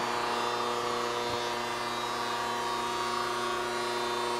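Steady electric hum of a Chevalier FSG-1228AD surface grinder standing powered up, its motors running: one constant tone with several overtones, unchanging in level.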